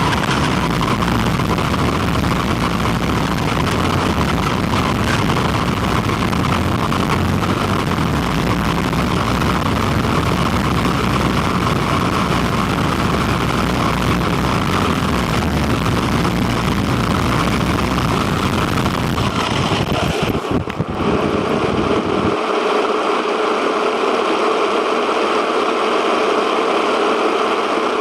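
Quanum Vandal electric RC car driving, heard on board: a steady, loud rush of motor, drivetrain and wheel noise over rough ground, with a steady whine. About 20 seconds in it dips briefly, then the deep rumble drops out and a steadier, higher hum is left.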